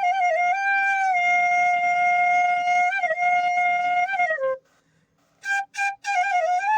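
Bansuri (bamboo flute) playing a slow melody: a long held note with small ornaments that slides down and stops about four and a half seconds in, then after a short break a few short notes begin a new ornamented phrase.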